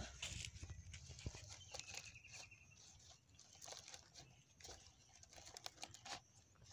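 Leaves and green stems crackling and rustling as they are pushed by hand into the hollow banana-trunk trap, in many small irregular clicks. A short, rapid high trill sounds about two seconds in.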